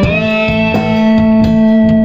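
Live blues band playing, with electric guitars and drums; a long note is held through most of the moment while the drums keep time.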